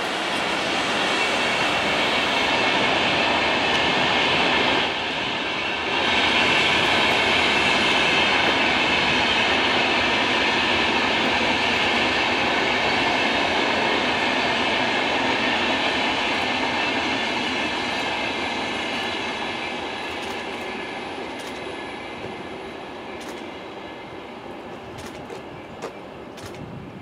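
Double-deck InterCity passenger train rolling past on the rails: a steady dense rumble and rush of wheels with a high squeal over it. It fades gradually over the last third as the train draws away, with a few sharp clicks near the end.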